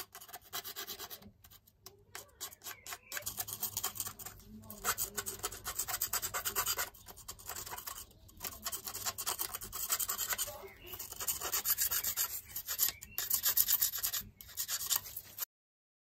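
Screwdriver blade scraping crusted rust and corrosion off an old padlock's body, in runs of rapid scratchy strokes with short pauses between them. The sound cuts off suddenly near the end.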